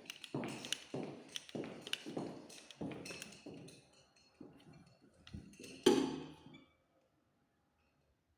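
Footsteps on a hard floor, about two a second, each with a sharp click. A single louder knock comes a little past the middle, and then the sound cuts off to dead silence.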